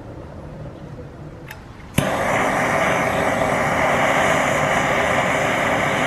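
Handheld propane torch coming on with a sharp click about two seconds in, then burning with a steady, loud hiss as it heats a piece of scrap aluminum.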